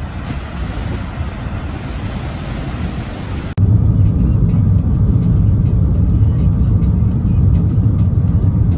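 Steady rush of a large waterfall, then a sudden cut about three and a half seconds in to the louder, steady low rumble of road noise inside a moving car.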